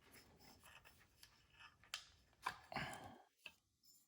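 Faint handling noise of small wires and parts being worked through holes in an LED light fixture: quiet clicks and rustles, with a few small knocks about two to three seconds in.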